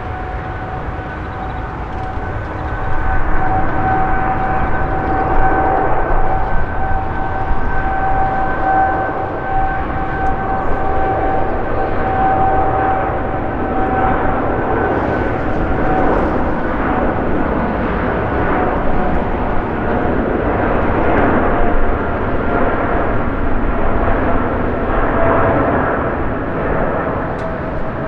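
Boeing 777-300 twin jet engines at takeoff power: a loud, steady roar with a high fan whine held on one pitch. The roar grows louder about three seconds in, and the whine slides slightly lower near the end.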